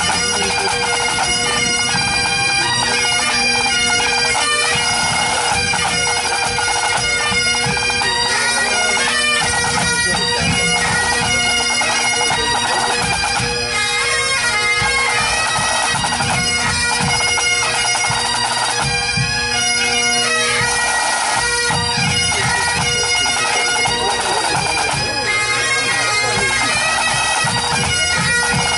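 Pipe band playing: Great Highland bagpipes sound a tune over their steady drones, with the band's snare, tenor and bass drums playing along.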